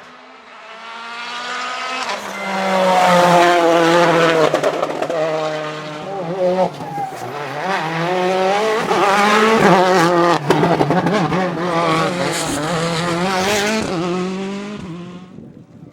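Rally car engine revving hard, its pitch rising and falling through gear changes as the car approaches and passes, then fading away near the end.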